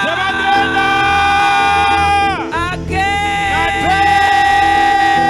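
A woman's voice holding two long, high sung notes. The first falls away about two and a half seconds in, and the second is held to the end. Steady instrumental backing plays underneath.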